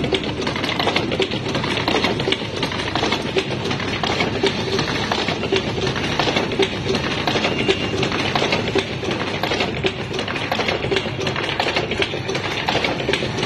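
Automatic transformer assembly machine running: a steady, rapid clicking and clattering of its moving parts.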